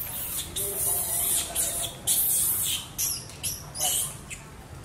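Monkeys squealing: a run of about six short, high, hissy squeals at irregular intervals.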